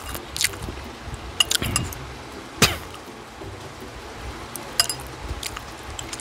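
Metal chopsticks clinking against a small glass bowl of dipping sauce as a siomai dumpling is dipped and turned in it: a few scattered sharp clicks, the loudest about two and a half seconds in.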